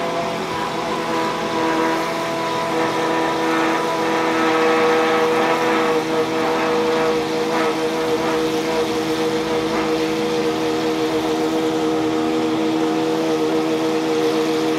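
Pagani Huayra R's naturally aspirated V12 idling steadily, holding one even pitch.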